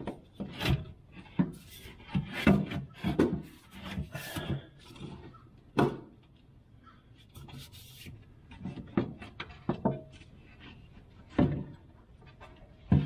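Fuel filler tube being worked loose and pushed through the underbody by hand: irregular rubbing and scraping with scattered knocks, the loudest about two and a half, four, six and eleven seconds in.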